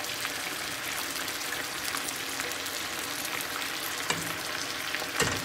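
Chicken broth with torn corn tortillas simmering in a steel stockpot on a gas stove: a steady, crackly bubbling hiss. A spoon stirs through it near the end, with a light knock about four seconds in and another just before the end.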